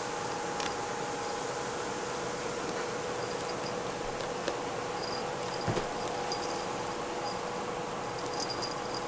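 Steady hiss and low hum of room noise, with scattered faint clicks and brief high tinkles as a Bengal kitten plays in a rope basket, the small bell on its collar jingling.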